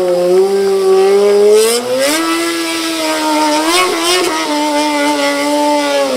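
Motorcycle engine held at high revs during a burnout, the rear tyre spinning on the pavement. The revs climb sharply about two seconds in, then hold steady.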